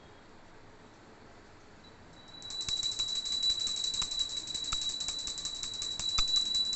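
Small brass puja hand bell rung fast and continuously, starting about two seconds in: a steady high ring over rapid clapper strikes. This is the bell that accompanies the camphor aarti offering.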